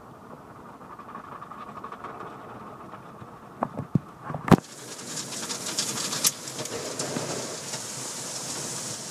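Automatic car wash heard from inside the car: machinery rumbling with water on the glass, a few sharp knocks against the car about three and a half to four and a half seconds in, then water spray hissing against the car and windshield for the rest.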